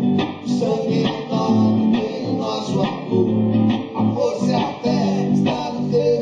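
Live band music with a guitar prominent, played during a soundcheck.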